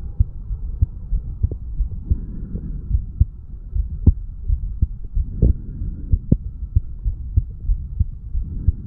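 Human heartbeat recorded on the chest over the mitral valve area after weight training: a continuous run of low, muffled thumps of the heart sounds, with a faint steady hum beneath.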